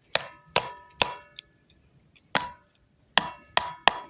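About seven sharp, unevenly spaced strikes on a hard object, each ringing briefly with a metallic, bell-like tone.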